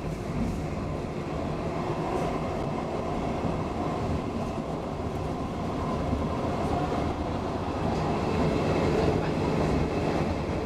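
Running noise of an ABB X10p electric railcar at speed, heard from inside the carriage: a steady rumble and rattle of the wheels on the rails, growing a little louder about eight seconds in.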